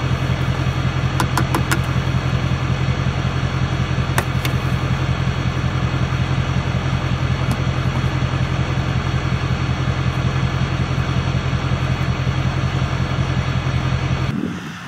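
Pickup truck engine idling steadily with an even pulse, heard close to its exhaust pipe, cutting off abruptly near the end. A few light clicks come early on the first couple of seconds and again about four seconds in.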